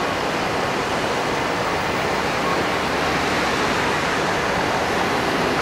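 Airbus A380's four turbofan engines at takeoff power as the airliner climbs away: a steady, even rushing jet noise.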